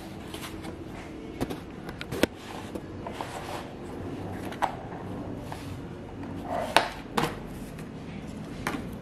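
Takeout food boxes being opened and handled: a handful of sharp clicks and knocks of the pulp containers over a low steady background, the loudest about seven seconds in.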